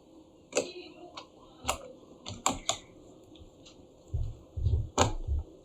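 Scattered small clicks and taps of a precision screwdriver driving the last screw into a laptop's bottom plate, with a few dull low knocks from handling the laptop near the end.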